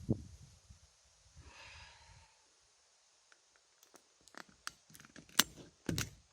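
Wind buffeting the microphone at first, then a run of short, sharp clicks and knocks from the .22 rimfire rifle being handled, the loudest about two thirds of the way through.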